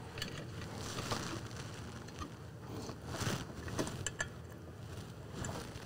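Faint handling sounds with a few small metal clicks and scrapes as fasteners are threaded by hand into a cast-aluminium inverter housing and cooling plate.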